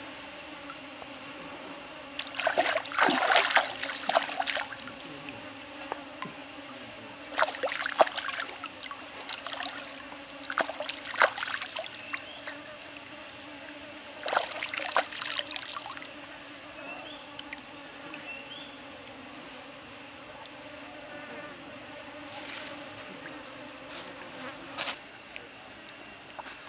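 Bursts of wet scraping and splashing as pieces of raw pig's groin are scraped with a knife and rinsed in stream water, coming in four spells over the first sixteen seconds, with a steady insect drone behind.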